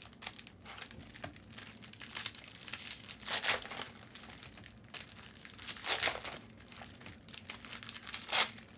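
Foil trading card pack wrappers crinkling and being torn open, in several rustling bursts, the strongest about a third of the way in, past the middle and near the end.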